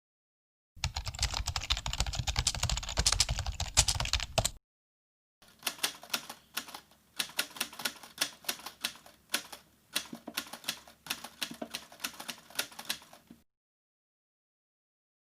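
Typing on a keyboard: a dense run of fast keystrokes for about four seconds, then after a short pause, slower clusters of separate key clicks for about eight seconds.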